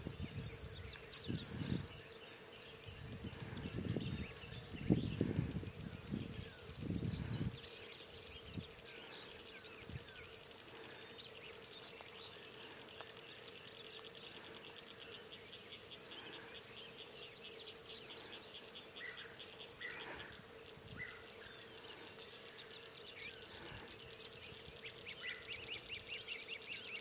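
Outdoor lakeside ambience: small birds chirping in quick repeated calls, with a high insect buzz that switches on and off every second or two and a faint steady hum. Low rumbles come and go through the first several seconds, then stop.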